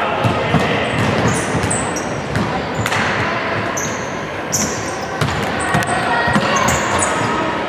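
Basketball game on a hardwood court: sneakers squeaking on the floor and the ball bouncing, with an impact about three seconds in and voices in the background.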